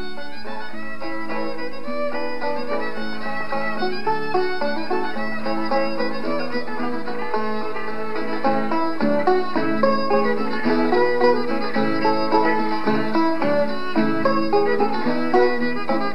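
Fiddle playing a dance tune, with plucked strings strumming along underneath.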